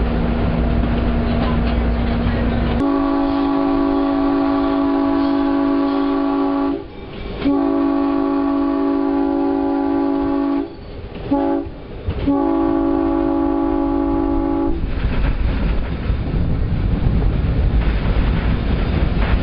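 Whitcomb diesel locomotive's horn sounding the grade-crossing signal: two long blasts, one short, then a long one, each a steady chord of several notes. Under it, the diesel engine runs and the train rumbles along the track, and the rumble goes on after the horn stops.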